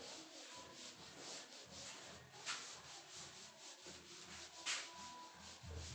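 Duster wiping a marker whiteboard: faint rubbing strokes, about two a second, with a couple of light knocks against the board.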